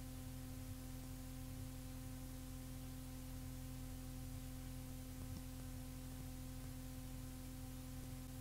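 Faint cassette tape hiss with a steady low hum: the blank stretch of tape between two songs playing back.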